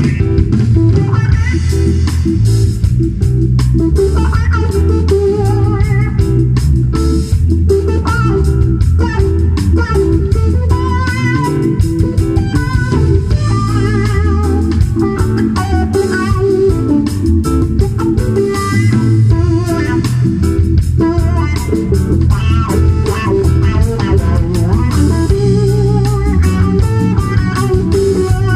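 Live blues band playing: electric guitar taking a lead line of wavering notes over bass guitar, drum kit and keyboard.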